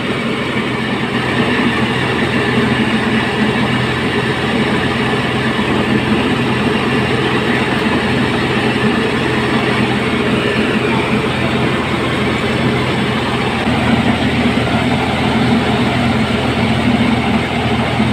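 Truck-mounted mobile rice mill running steadily, its engine-driven huller and polisher milling palay into rice: a loud, constant mechanical drone.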